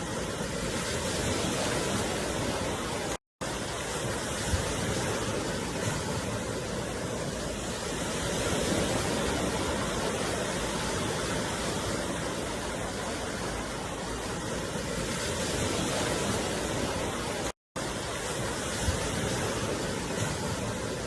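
Steady rushing beach ambience of surf and wind, even and unbroken, with the sound cutting out completely for an instant twice.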